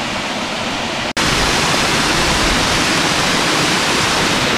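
Mountain waterfall and the rocky stream below it rushing: a steady hiss of falling and tumbling water. It cuts out for an instant about a second in and comes back a little louder.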